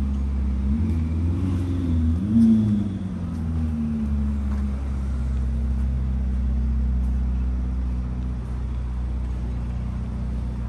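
Car engine revving, its pitch rising and falling over the first few seconds and loudest about two and a half seconds in, then a steady low engine drone.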